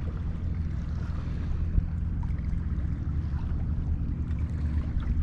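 Wind buffeting the microphone in a steady low rumble, with water lapping against a kayak in choppy seas.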